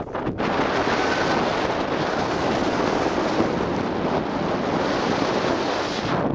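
Wind buffeting the camera's microphone: a loud, steady rushing rumble.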